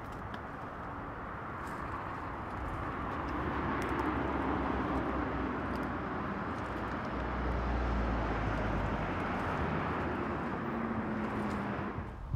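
Road traffic ambience: the noise of a passing vehicle swells over the first few seconds and stays up, with a low rumble around the middle, then cuts off abruptly near the end.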